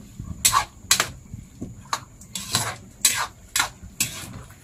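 A spatula scraping and clinking against a wok as the food is stirred: about six strokes in two runs, each stroke about half a second after the last.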